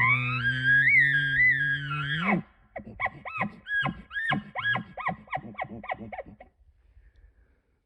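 Elk bugle: a high whistling note over a low growl, held for about two and a half seconds. It is followed by a quick series of rising-and-falling chuckles that stop about six and a half seconds in.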